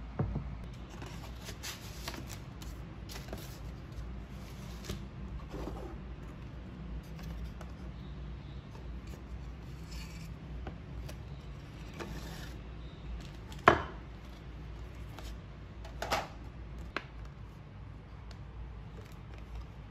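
Hands handling a wooden box frame, its glass pane and paper calendar cards, making light taps, clicks and rubbing. There is a sharp knock about two-thirds of the way through and a smaller one a couple of seconds later.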